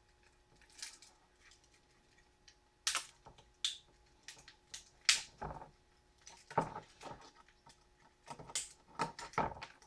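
Separate sharp clicks, snaps and knocks at irregular intervals, with quiet gaps between, as plastic parts are pried and snapped off a CRT deflection yoke by hand.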